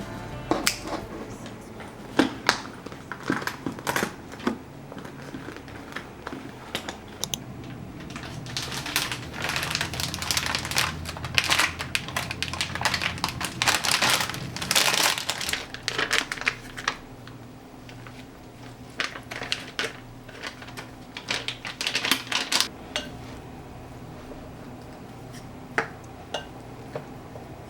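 Irregular clicks and taps with stretches of rustling and crinkling, from small objects, paper or packaging being handled at close range; the rustling is busiest in the middle.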